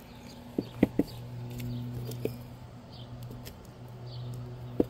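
A few sharp clicks and knocks of quartz crystal pieces being handled on a plastic tarp, the loudest two close together about a second in and another near the end. Under them is a steady low hum, with faint bird chirps.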